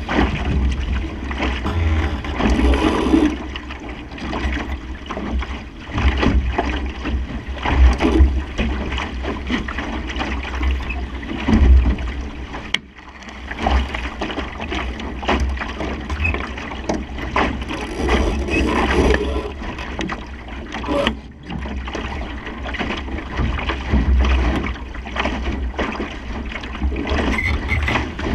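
Wind buffeting the microphone and water rushing along the hull of a Supernova sailing dinghy under way in a strong breeze. The loudness surges irregularly, with a brief lull about two thirds of the way through.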